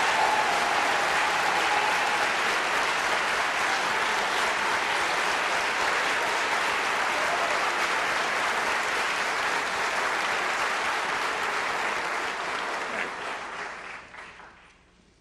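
Audience applauding steadily, then dying away over the last couple of seconds.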